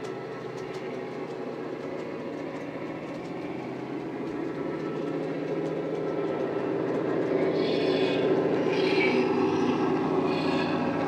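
Model Class 68 diesel locomotive running with a Coastal DCC sound file, its simulated diesel engine playing through a bass-heavy EM2 speaker. The steady engine drone grows louder over the second half as the model approaches.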